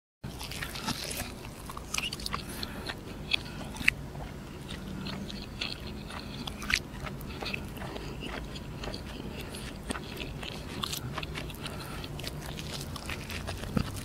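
A man chewing roti canai with fried egg: scattered wet mouth clicks and smacks.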